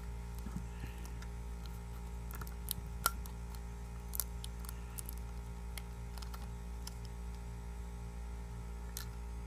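Scattered light clicks and taps of small plastic spring clamps and the phone being handled on a workbench, the sharpest about three seconds in, over a steady low electrical hum.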